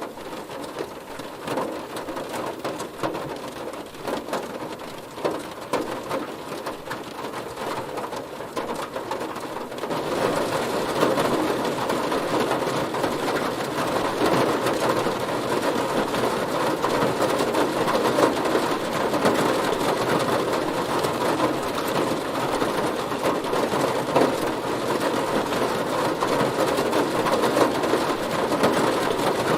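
Heavy rain drumming on a car's metal body, a dense steady patter of countless drop impacts. It grows louder about ten seconds in.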